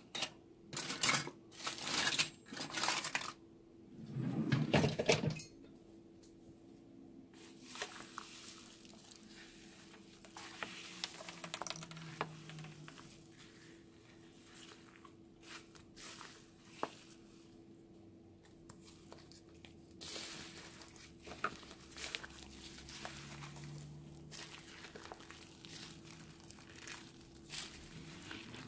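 Foam-bead slime being stirred with a plastic spatula in a glass dish and then squeezed and kneaded by hand, with crinkling and crackling from the foam beads. Several louder rustling bursts come in the first five seconds, then quieter scattered crackles and scrapes.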